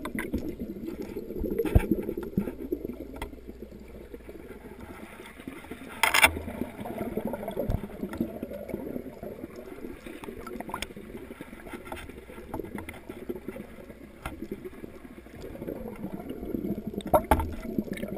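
Muffled, irregular sloshing and bubbling of water heard through a camera held underwater in a fish pond, with a few sharp knocks, the loudest about six seconds in and another near the end.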